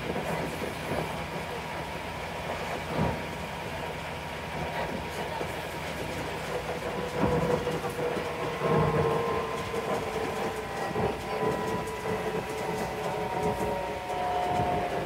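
Scania N94UB Omnicity bus under way, heard from inside the saloon: the Scania DC9 9-litre engine running under a steady rumble of road noise and body rattle, with a few knocks over bumps. From about halfway a gear whine comes in and falls slowly in pitch toward the end, typical of the ZF Ecomat 5-speed automatic gearbox.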